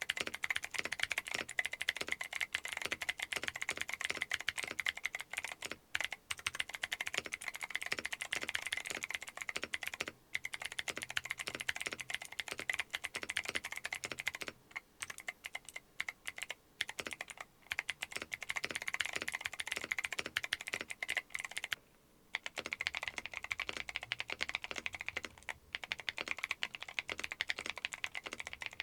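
Continuous fast typing on a mechanical keyboard with Akko Creamy Cyan clicky switches, whose click jackets give a sharp click on each keypress. It pauses briefly a few times.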